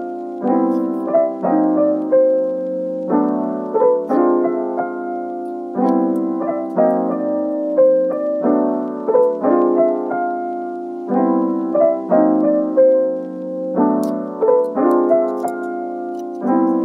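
Background piano music: a gentle melody of short phrases repeating over sustained lower chords.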